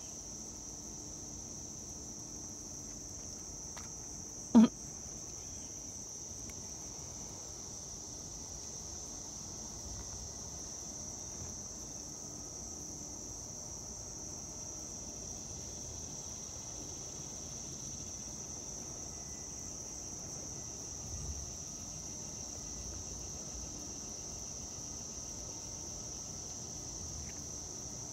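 Steady, high-pitched insect chirring, unbroken throughout, with one brief sharp knock about four and a half seconds in.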